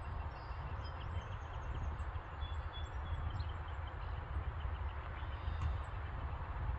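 Outdoor ambience: a steady low rumble with faint, scattered high bird chirps throughout.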